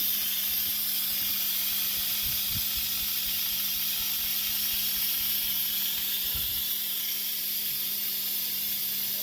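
Instant Pot electric pressure cooker venting steam through its release valve: a steady, loud hiss as the pressure is let out after cooking, with a low steady hum beneath.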